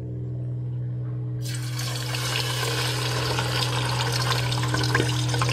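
Hot oil bursts into a sizzle about a second and a half in as whole scored Spanish mackerel go into the pan, then keeps sizzling and crackling, over a steady low hum.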